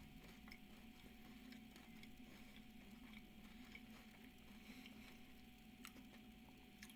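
Near silence: faint chewing of a crisped-rice milk chocolate bar, soft scattered clicks over a steady faint hum.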